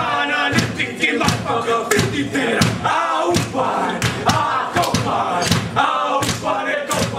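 A group of young men performing a haka: a shouted chant in unison, with sharp hand slaps and foot stamps about twice a second.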